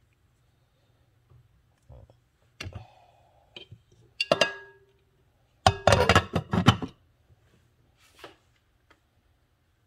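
A few light knocks and a ringing clink, then the glass lid of a Hamilton Beach slow cooker set down on its stoneware crock, clattering and ringing for about a second as it settles.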